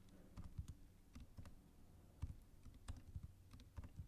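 Faint computer keyboard typing: irregular keystrokes as labels are entered into spreadsheet cells.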